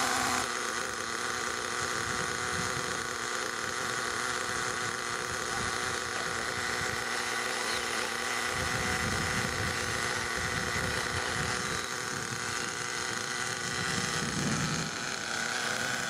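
Small nitro glow engine of a radio-controlled model car running steadily. A deeper rumble joins for several seconds past the middle.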